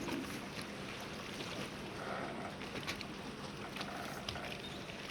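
Port ambience: a steady low hum over a continuous background wash, with faint scattered clicks and knocks.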